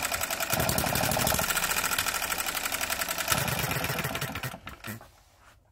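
Enjomor 6cc hit-and-miss model petrol engine running with a rapid, even mechanical beat, then dying away and stopping about four and a half seconds in after its ignition is switched off.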